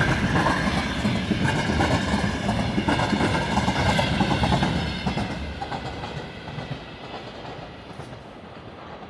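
Freight train wagons rolling past on the rails behind a VL11 electric locomotive, a loud steady rumble that fades away from about five seconds in as the train recedes.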